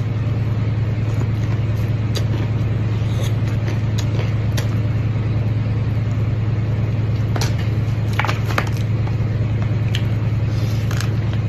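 A steady low hum, with scattered short crunches and clicks of chewing crispy fried chicken wings.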